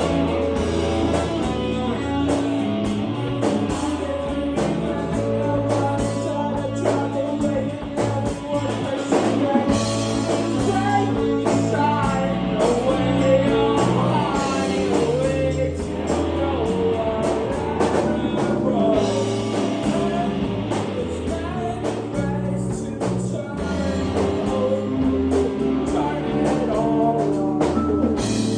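Live band playing rock music with a drum kit, bass and guitar, and a voice singing over it.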